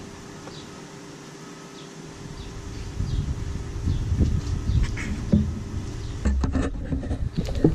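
Plastic intake airbox parts being handled and pulled out of an engine bay, with a series of knocks and clatters, the sharpest near the end, over a steady buzzing hum.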